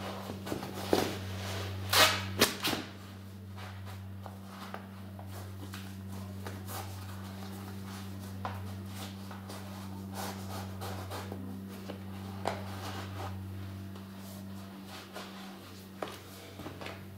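Laces being pulled through the eyelets and tied on low-top skate sneakers worn on the feet: soft rustling and small clicks, with two sharper knocks about two seconds in. A steady low hum runs underneath.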